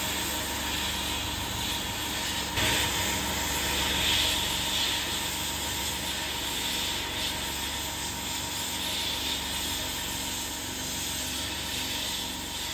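Abrasive blast gun in a blasting cabinet, spraying a steady hiss of blasting media onto the brass head and burner tube of an old blowtorch, with a faint steady hum underneath. It gets louder about two and a half seconds in.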